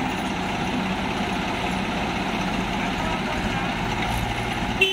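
Swaraj tractor's diesel engine running steadily under load as the tractor drives through deep mud, a rear wheel spinning. A short sharp pitched sound comes near the end.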